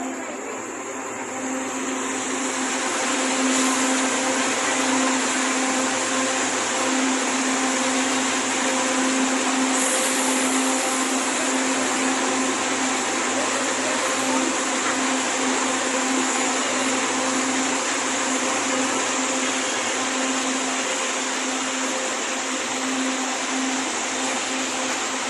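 Train running, heard from inside the carriage: a steady rushing noise with a low hum, growing louder over the first few seconds and then holding.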